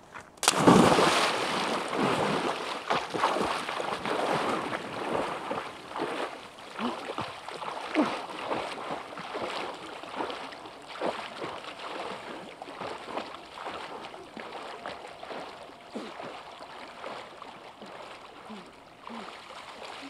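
A person jumping into a pond with a loud splash about half a second in, then swimming and wading through the water, with continuous splashing and sloshing that slowly grows quieter.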